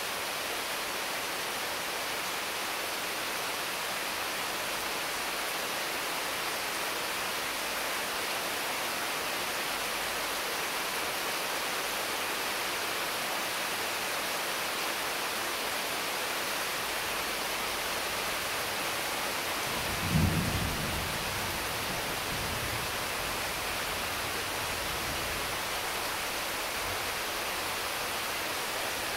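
Steady heavy rain pouring onto the leaves of mango and papaya trees. About two-thirds of the way through a sudden low clap of thunder breaks over the rain and dies away in a low rumble over several seconds.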